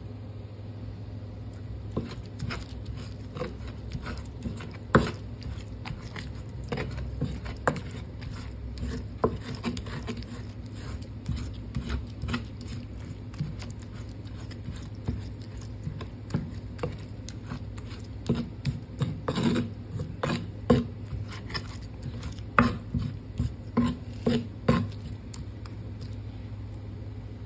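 Sambal being ground with a stone pestle (ulekan) in a mortar (cobek): irregular wet squishing and scraping of crushed chillies and tomatoes, with sharp knocks of the pestle against the mortar that come thicker in the second half. A steady low hum runs underneath.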